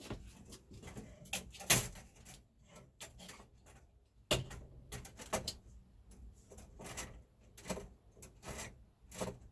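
Handling noise: a string of irregular knocks, clicks and rattles, the loudest about one and a half seconds in and again just past four seconds in.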